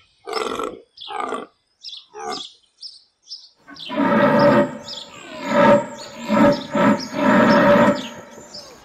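Antelope calling: a quick series of short calls, then after a pause longer, louder calls from about four seconds in. Birds chirp faintly in the background.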